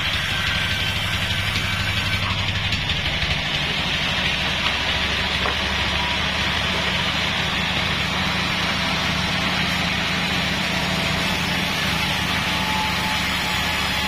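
Taiwanese-made Bandsaw 36 band sawmill running and sawing a Bayur log into boards. A steady machine hum with a sawing hiss over it, the low hum changing about three seconds in.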